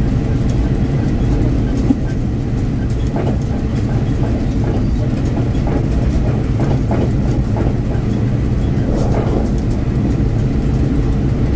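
Diesel train running along the track: a steady low rumble of the engine and wheels, with one sharp click about two seconds in.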